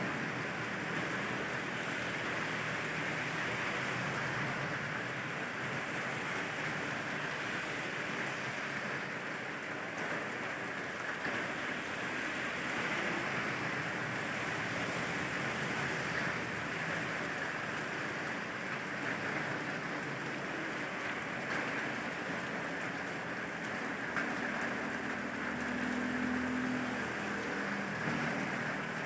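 Steady rain with a low hum of traffic underneath; a low drone swells briefly near the end.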